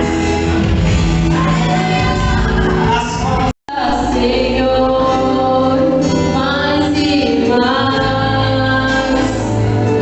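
Gospel music with singing. The sound cuts out completely for a moment about three and a half seconds in.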